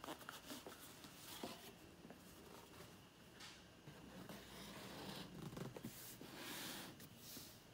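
Faint rubbing and light taps of paperboard: a rigid white box lid being handled and slid down over its base tray, with a few small clicks near the start and soft scraping swells later.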